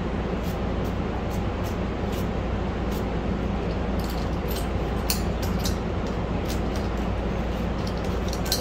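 Scattered small metallic clicks and taps of a hand valve spring compressor, valve spring retainer and keepers being worked on an LS aluminum cylinder head, with a cluster of sharper clicks about halfway through. A steady fan hum runs underneath.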